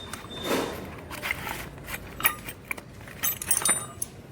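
Metal hand tools clinking and tapping against each other and the motorcycle engine: a few separate light clinks, then a quick cluster of rattling clinks about three seconds in, as work begins on loosening the exhaust valve tappet.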